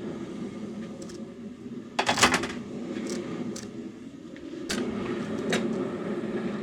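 Kitchen clatter as beef pieces and a utensil go into a pot of hot water: a burst of knocks and clinks about two seconds in, then a few single clicks, over a steady hum.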